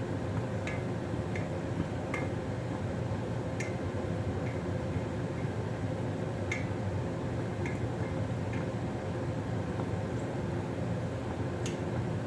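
Steady kitchen hum with about eight light, sharp clicks and clinks scattered through it, such as dishes being handled.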